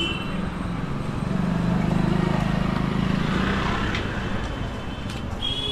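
Street traffic in a busy market lane: a motor vehicle's engine swells as it passes about a second in and fades by about three and a half seconds, and a high steady horn-like tone starts near the end.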